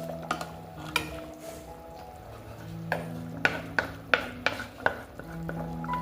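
A spoon stirring and knocking against a cooking pot, with a run of sharp clacks about three to five seconds in. Background music with a slow melody plays underneath.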